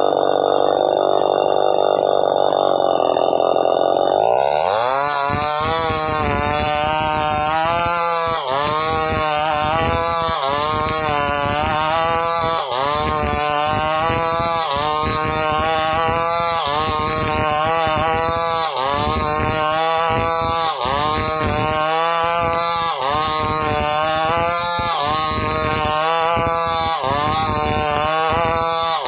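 Chainsaw ripping a log lengthwise into boards, its engine running hard. For the first few seconds the engine holds a steady note, then its pitch dips as the chain bites and rises again as the saw is worked back and forth, about once every two seconds.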